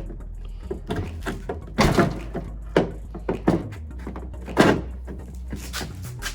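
Hard plastic knocks and clunks of a Honda Odyssey inner tail light assembly being handled and pushed into place on the tailgate: a string of irregular thuds, the loudest about two seconds in and again past the middle.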